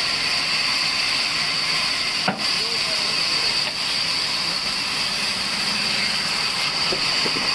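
Large vertical band saw running and cutting through a section of log, a steady high-pitched rushing noise of the blade in the wood, with brief dips at the start and about two seconds in.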